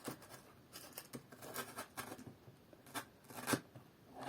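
Faint rustling and a handful of short sharp clicks from hands handling soap flowers on skewers and the foam-filled planter; the loudest click comes about three and a half seconds in.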